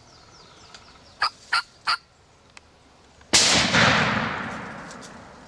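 Three quick, sharp turkey clucks, used to make the gobbler raise his head, then a single shotgun blast about three seconds in that rings out and fades over the next two seconds.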